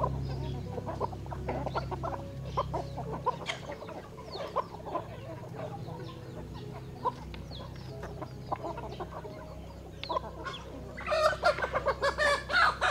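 Chickens clucking, with many short calls scattered through and a louder, busier flurry of calls about eleven seconds in.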